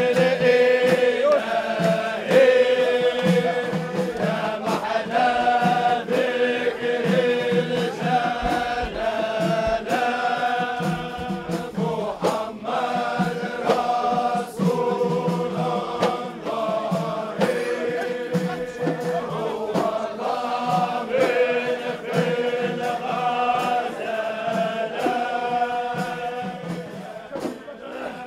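Men's chorus chanting a Sufi hymn in unison, in long melodic phrases, over a steady beat of frame drums.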